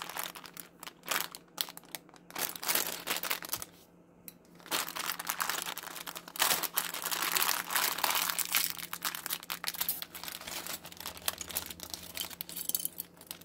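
Thin plastic packaging bag crinkling and crackling as it is handled and opened, in irregular bursts with a short lull about four seconds in.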